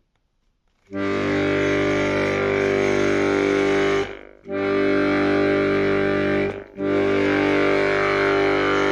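Bayan (Russian button accordion) sounding its bass G as three long held notes with short breaks between them. This is the bass voice that the owner says has started to rasp when the bellows open.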